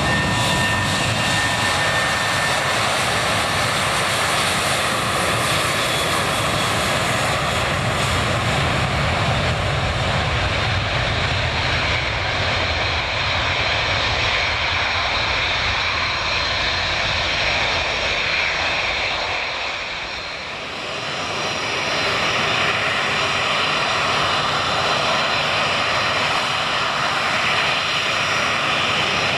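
Twin-engine jet airliner departing at close range, its engines at takeoff power giving a loud, steady roar. Thin whining tones sit over it in the first few seconds, and the noise dips briefly about twenty seconds in before building again.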